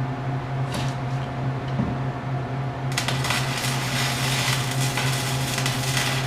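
Metalworking on a car frame: a steady low hum, then about three seconds in a dense crackling hiss that runs on.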